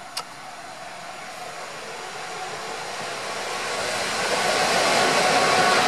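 Class 66 diesel locomotive running light and approaching, a rushing engine and rail noise that grows steadily louder. A short sharp click about a quarter second in.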